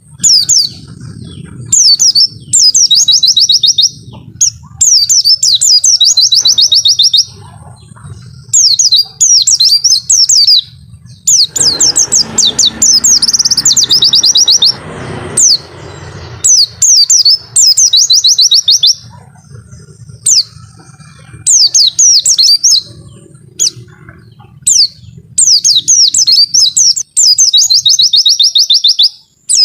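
White-eye (pleci) singing loud, repeated phrases of rapid high 'wit-wit' notes, each burst about a second long with short gaps between. A low steady hum runs underneath, and a rushing noise joins in for a few seconds near the middle.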